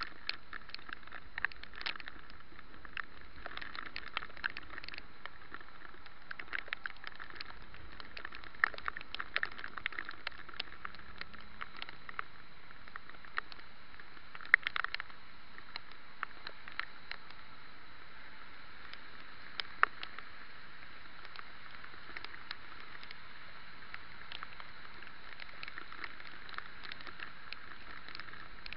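Rain heard through a bike-mounted camera: a steady hiss with irregular sharp taps of raindrops striking the camera, a few of them louder about a third and about halfway through.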